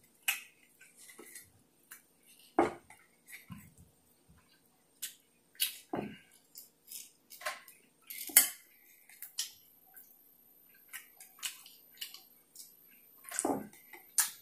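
Steak knife and fork clinking and scraping against a plate while cutting a grilled T-bone steak: a scatter of short, sharp clicks and scrapes, the loudest about two and a half and eight and a half seconds in.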